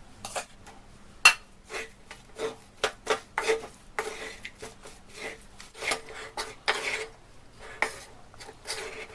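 A spatula scrapes and knocks against a kadhai while a thick mixture of roasted flour and melted jaggery is stirred and mixed. The strokes come irregularly, with one sharper clank about a second in.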